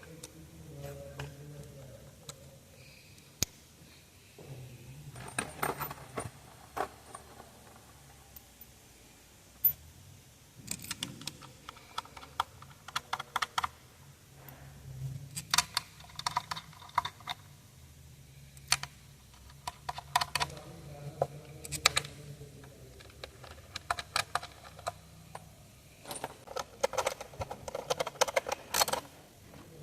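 Hand socket ratchet clicking in several short, rapid runs of strokes, with pauses and a few single knocks between them, as it turns a fastener on the engine.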